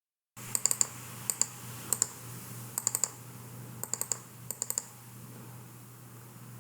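Sharp light clicks in about six short clusters of two to four, spread over the first five seconds, then stopping, over a low steady hum.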